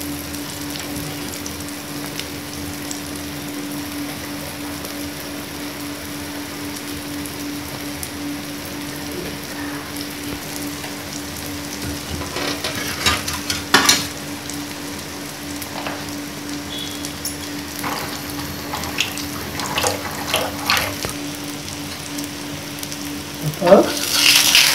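Ragi dosa frying in oil on a hot tawa: a steady sizzle, with scattered crackles and pops from about halfway through. Near the end a metal spatula scrapes against the pan, the loudest sound.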